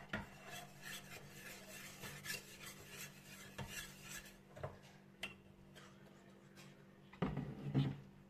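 Metal utensils clinking and scraping against a stainless-steel pot, with quick light scrapes and taps in the first few seconds. Near the end comes a louder scraping as chocolate sauce is scraped out of the pot with a metal spoon.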